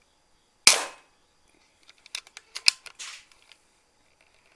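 A single shot from a PCP air rifle about 0.7 s in: a sharp crack that dies away quickly. About a second later comes a short scatter of lighter clicks and knocks.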